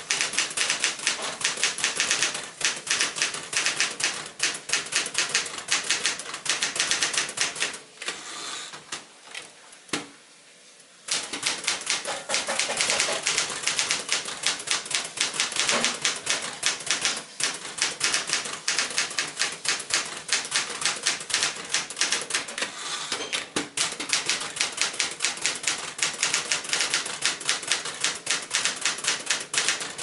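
Keys and typebars of a 1960 Smith-Corona Galaxie manual portable typewriter clacking in rapid, steady typing, with a break of a few seconds about a third of the way in.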